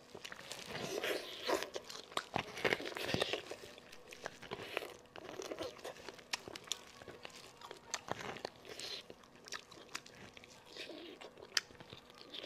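Cooked sheep bones cracking and crunching as gloved hands twist them apart, with the crinkle of thin plastic gloves and some chewing and biting; many sharp cracks are scattered throughout.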